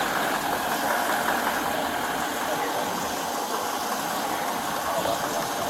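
Steady hum and rumble of an idling vehicle engine, unchanging throughout.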